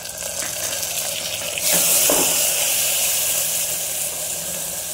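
Onions frying in hot mustard oil in an aluminium pressure cooker; about a second and a half in, wet ginger-garlic paste goes into the oil and the sizzle jumps to a loud hiss, then eases off a little as it is stirred in.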